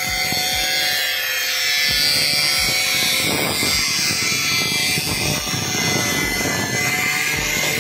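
Electric angle grinder running at full speed with a red abrasive disc, cutting into the plastic rear mudguard of a motorcycle. A steady high whine, with the grinding noise growing heavier about three seconds in as the disc bites.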